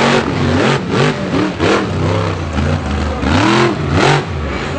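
A monster truck's roughly 1,500-horsepower engine revved hard again and again, the pitch swinging up and down about twice a second as the driver blips the throttle.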